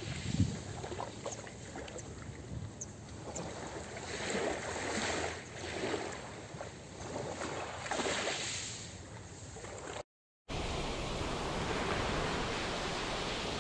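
Small waves lapping onto a pebble shore, washing in and out in swells every second or so. About ten seconds in, the sound cuts out for half a second and gives way to a steadier wash of surf on sand.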